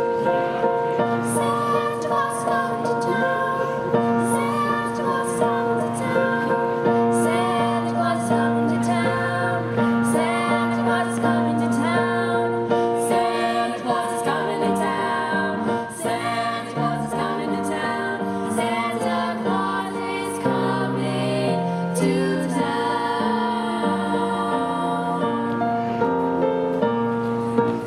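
Youth choir of girls' voices singing in harmony over an instrumental accompaniment with a moving bass line.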